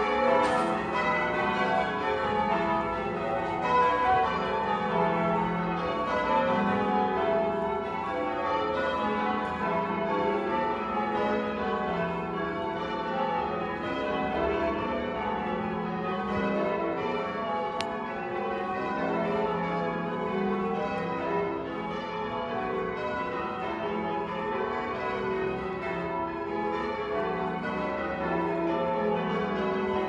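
The bells of St Mary de Castro church tower being rung in changes: a ring of bells struck one after another in a continuous, even stream of overlapping, ringing tones.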